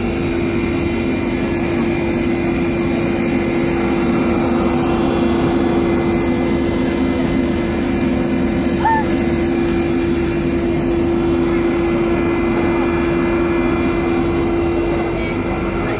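A river cruise boat's engine and machinery drone steadily, with a constant low hum under an even wash of noise.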